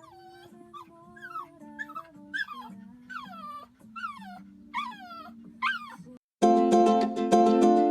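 A dog whining repeatedly, a string of high whimpers that each fall in pitch, over soft background music. About six seconds in, loud ukulele music begins.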